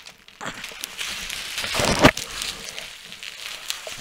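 Plastic bubble wrap rustling and crinkling as it is handled and pulled out of the packing, with a thump about two seconds in.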